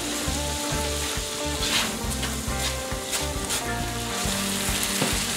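Orange roughy fillet sizzling in a stainless steel frying pan of lemon, white wine and sour cream liquid over medium-high heat. A spatula scrapes and slides under the fish a few times as it is moved around the pan to keep it from sticking.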